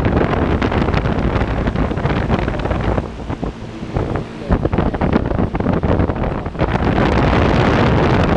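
1996 American Standard packaged heat pump (model WCH036B100AA) running, its compressor and fan giving a steady hum, largely covered by loud, gusty wind buffeting the microphone that eases a few seconds in and picks up again near the end.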